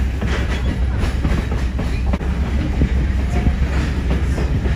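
Heritage passenger train rolling along the track, heard from inside the coach: a steady low rumble with irregular clicks and knocks of the wheels over the rails.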